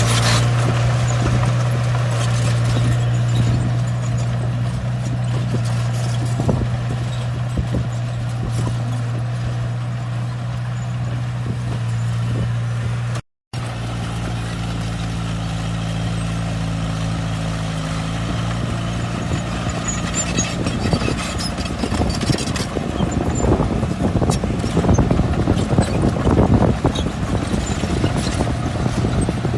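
Bulldozer's diesel engine running steadily with a deep, even hum. The sound breaks off for a moment about thirteen seconds in, and irregular clattering and clanking grow louder in the second half.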